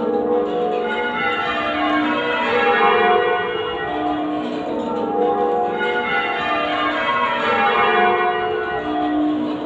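A ring of eight church bells, a 1952 Mears & Stainbank ring in F#, rung half-muffled in changes. The bells strike one after another in steady, repeating rows that cascade down the scale.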